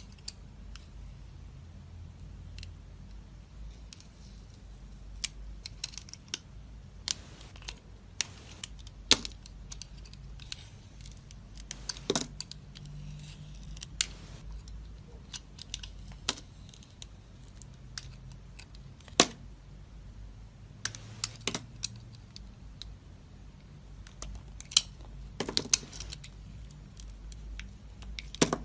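A knife cutting dry soap: crisp, sharp crunches and snaps at irregular intervals, several bunched into quick runs, over a faint low hum.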